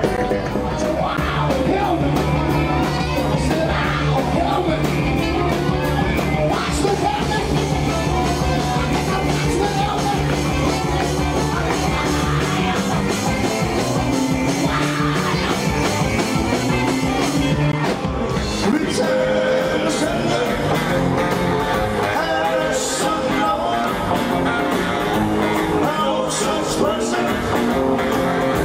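Rock and roll band playing with a singer, the music changing to a different passage about two-thirds of the way through.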